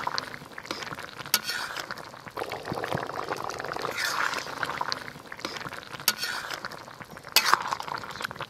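Long metal spatula stirring a simmering fish-and-taro-stem curry in a large metal kadai, scraping through the liquid and striking the pan with a few sharp clinks.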